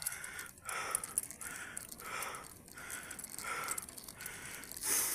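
A cyclist breathing hard while pedalling uphill: rhythmic, noisy breaths about every three-quarters of a second, with a louder breath near the end.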